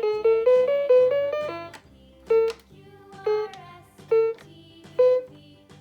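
VTech Little Smart School Bus toy playing a synthesized children's tune through its small speaker. It starts with a quick run of notes, then plays single notes about once a second over a repeating bass line.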